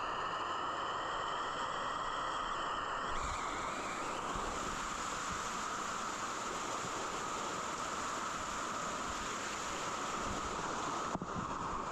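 Waterfall water rushing steadily into a pool, an even hiss.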